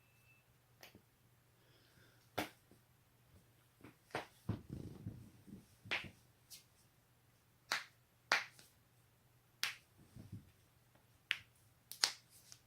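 Human joints cracking: about ten sharp pops, roughly a second apart, as necks and backs are twisted and adjusted. A brief low rumble comes just before the middle.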